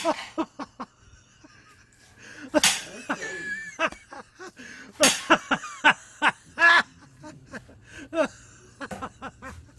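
Kitchen knife cutting rounds from a pineapple, with a series of sharp knocks on the cutting board. A man's voice comes in briefly between cuts.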